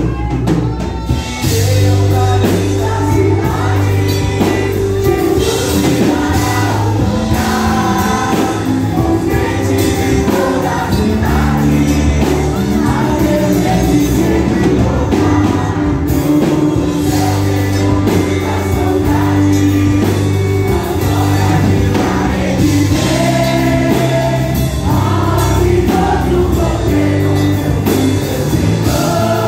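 Youth choir singing a gospel worship song in unison into microphones, over a live band with drums and a steady bass line, amplified through PA loudspeakers.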